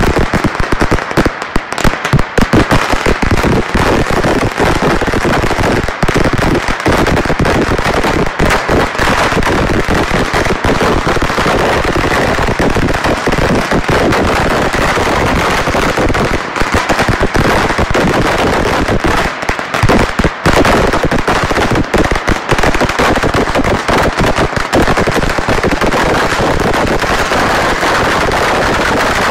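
Firecrackers going off in a dense, rapid crackle of bangs that runs on without a pause, loud throughout.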